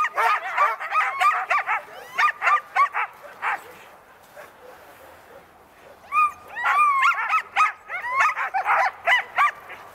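A harnessed team of sled dogs (huskies) barking and yipping, many short high yelps overlapping. They go quiet for a couple of seconds midway, then start up again with a few longer drawn-out cries among the yips.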